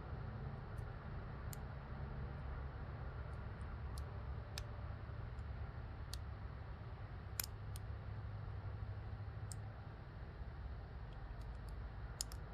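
Lock pick probing the pins of an Almont rekey padlock under light tension: irregular small metallic clicks and ticks, the sharpest about halfway through and near the end, over a steady low hum.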